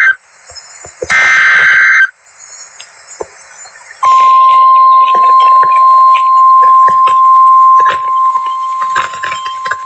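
Emergency Alert System broadcast over weather radio: a last burst of SAME header data tones (a harsh warbling screech) about a second in, then after a short pause the steady 1050 Hz warning alarm tone starting about four seconds in. The tone drops in level about eight seconds in and carries on, over crackly radio static.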